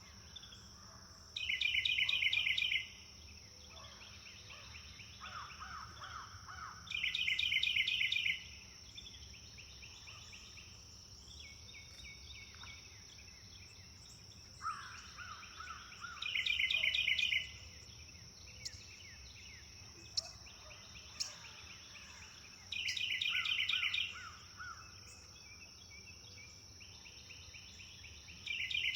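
Birdsong: one bird repeats a loud, rapid trilled phrase of about a second and a half roughly every six seconds, with softer, lower-pitched phrases from other birds in between. A steady high-pitched drone and a low rumble run underneath.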